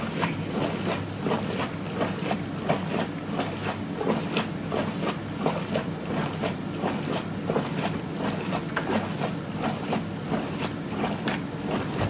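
Hotpoint Supermatic De Luxe 9414 twin-tub washing machine agitating in its wash tub: a steady motor hum under rhythmic churning and sloshing of soapy water, a few splashes a second.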